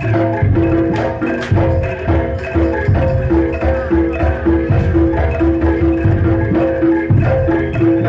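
Jaranan dor gamelan accompaniment: struck gong-chimes and metallophones play a repeating pitched figure over a steady beat of low drum strokes.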